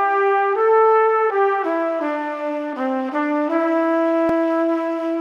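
Background music: a brass-sounding melody played one note at a time, ending on a long held note.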